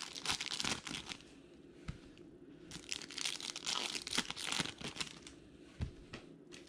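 Foil wrapper of a 2019 Bowman Chrome baseball card pack being torn open and crinkled by hand, in two spells of crackling with a quieter gap between, and a soft knock near the end.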